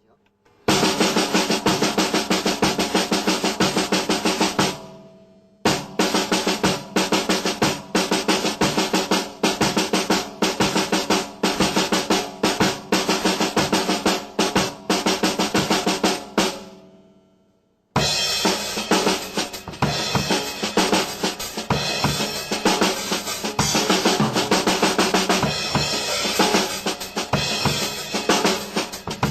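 Drum kit played solo in fast runs of quadruplet and sextuplet groupings across snare, toms and bass drum. The playing stops briefly about five seconds in and again about sixteen seconds in, and the last passage carries more cymbal wash.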